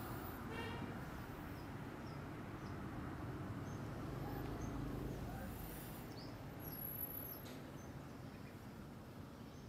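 Steady low background noise, with one brief high-pitched squeak about half a second in and a few faint short chirps later.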